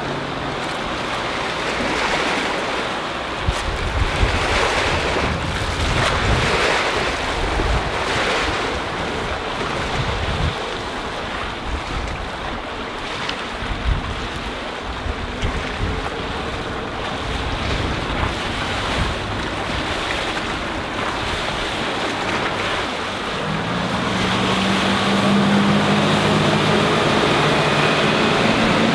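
Wind buffeting the microphone over rushing water, with the distant drone of the boat's MerCruiser 5.0L MPI V8 sterndrive engine. From about 24 seconds in, the engine note grows louder and rises in pitch as the boat comes close past at speed.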